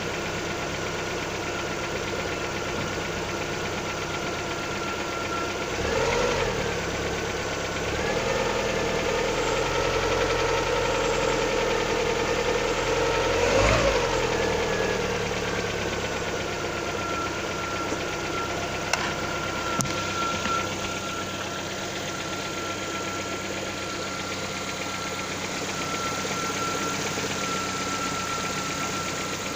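Lada XRAY petrol engine running cold with a knock, the sound the owner is asking about. The revs rise briefly about six seconds in and again from about eight to fourteen seconds, then settle back to idle; two sharp clicks come near twenty seconds.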